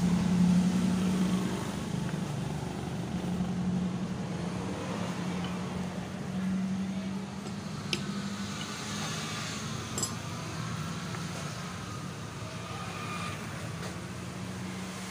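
Steady low motor hum that swells and fades slightly, with two sharp metal clicks about eight and ten seconds in.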